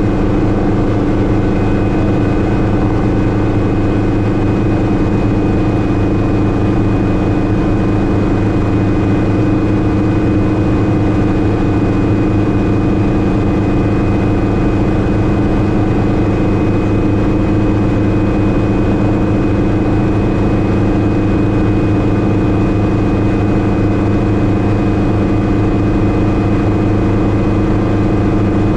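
Cockpit noise of a Schweizer 300C (Hughes 269C) piston helicopter in flight. Its four-cylinder Lycoming engine and rotors make a steady, loud drone, with a thin steady whine above it.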